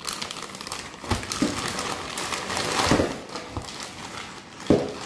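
Plastic packaging bag of a 3M respirator crinkling as it is handled and opened, with a few knocks and thumps against the desk, the sharpest near the end.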